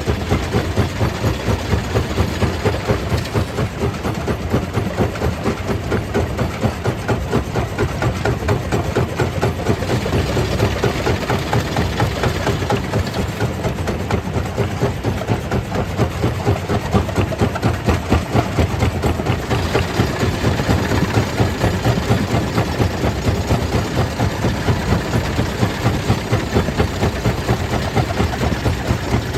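Stone crusher plant running: a heavy machine drone with an even pulse about three times a second, and a noisy, gritty layer on top that grows brighter for several seconds midway.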